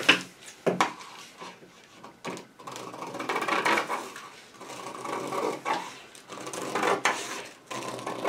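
Scissors cutting through a paper sleeve pattern: a run of snips with the paper crackling and rustling, mostly from about three seconds in, after a few handling clicks.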